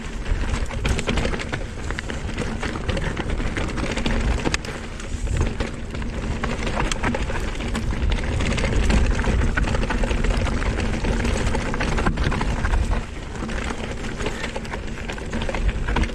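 Canyon Spectral:ON electric mountain bike riding fast down a damp, gravelly trail: continuous tyre rumble on loose ground with frequent clicks and rattles from the bike over bumps.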